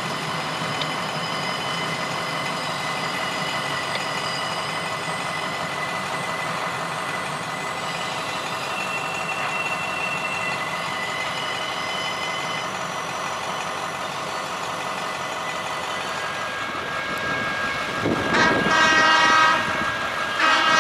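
Freight train of empty flatcars rolling past, a steady rail-and-wheel noise with a few faint high-pitched whines. About 18 seconds in, a louder horn sounds for about two seconds and then again just before the end.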